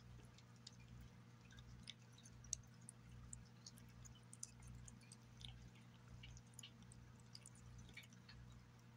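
Faint, irregular wet clicks and smacks of a cat chewing and licking turkey cuts in gravy from a glass plate, over a steady low hum, with one sharper click about two and a half seconds in.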